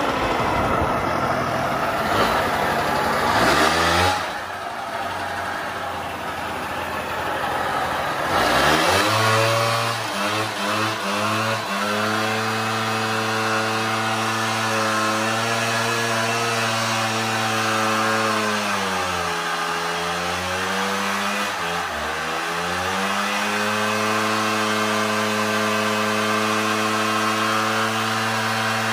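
Suzuki LT80 quad's 80 cc two-stroke single-cylinder engine running: ridden for the first few seconds, then holding a steady fast idle. Its revs sag and pick back up twice, about two-thirds of the way through. The engine has just been revived after sitting in a barn.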